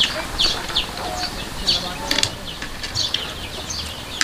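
Birds chirping over and over, short high falling chirps several a second, with a couple of sharp clicks about two seconds in.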